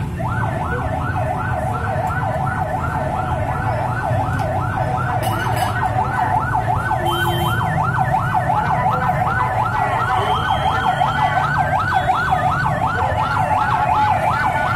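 Siren sounding in a fast, repeating yelp, about three falling sweeps a second, over a low steady rumble of traffic.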